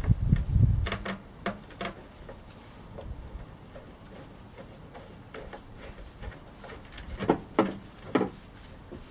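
Scattered metallic clicks and taps of small hardware (bolts, washers, nuts and brackets) being handled and fitted by hand, with a few dull thumps in the first second and a louder pair of clicks near the end.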